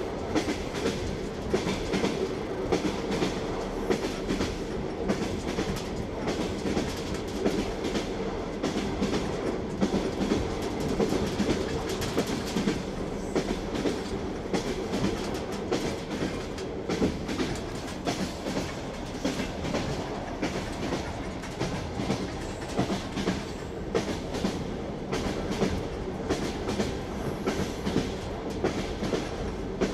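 Train wheels clattering over rail joints: a steady rolling rumble with a continuous run of rhythmic clicks.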